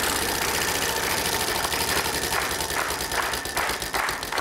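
Game-show prize wheel spinning: a rapid clatter of pegs clicking past the pointer, the clicks spacing out as the wheel slows.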